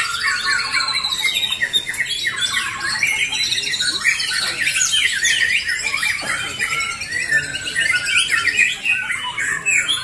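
Many caged white-rumped shamas (murai batu) singing at once in competition: a dense, overlapping chorus of rapid trills and fast whistled sweeps.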